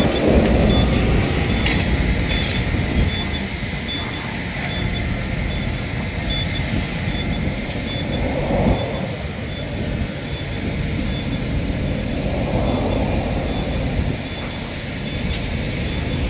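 Steady low noise of a car fire being fought on a motorway, from the burning car and the running equipment. There are a few sharp pops and a faint high beep repeating in short dashes throughout.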